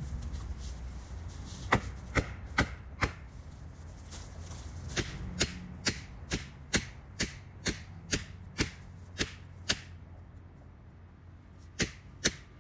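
Felling wedges being driven into the back cut of a back-leaning pine: sharp, evenly spaced blows about every half second, a group of four, then a run of about eleven, then two more near the end. The wedging is lifting the tree over against its back lean.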